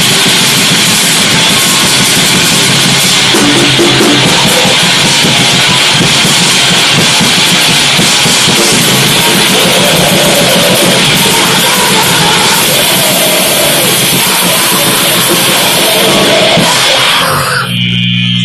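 Loud, dense, distorted noise music with a heavy-rock character, a continuous wall of sound. About seventeen seconds in, it cuts abruptly to a steady droning tone.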